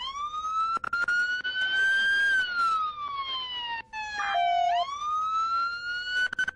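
Police car siren on a slow wail: the pitch rises for about two seconds, falls for about two and a half, then climbs again near the end.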